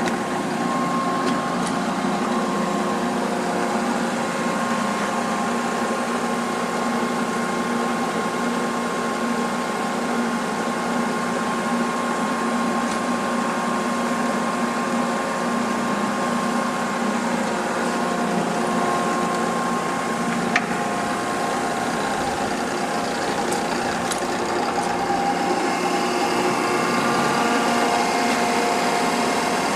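Cincinnati universal cylindrical grinder running under power: a steady mechanical hum with several held tones. A single sharp click comes about two-thirds of the way in, and a few new tones join after it.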